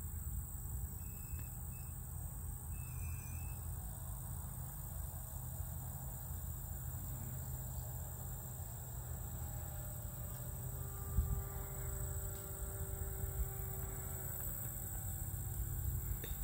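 Wind rumbling on the microphone under a steady high insect drone. From about ten seconds in, the faint hum of a distant RC plane's motor joins in, and there are a couple of brief thumps.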